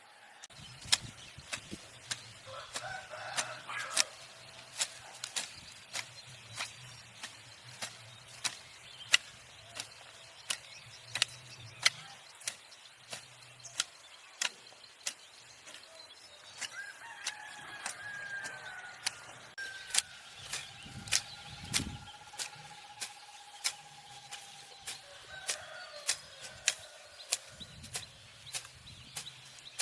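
A rooster crowing a few times, the calls drawn out, over a steady series of sharp knocks, about two a second.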